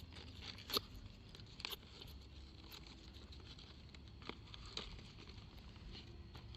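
Faint handling noise of a firework pack being taken out and opened: light rustling with a few scattered sharp clicks and taps.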